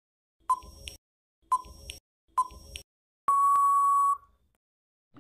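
Countdown timer sound effect: three short ticking beeps about a second apart, then one long steady beep lasting nearly a second as the timer runs out.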